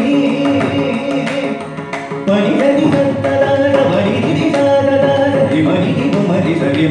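Carnatic vocal singing in raga Madhyamavati, set to the five-beat khanda chapu tala, with violin following the voice and mridangam strokes keeping the rhythm. The sound dips briefly about two seconds in, then comes back in full.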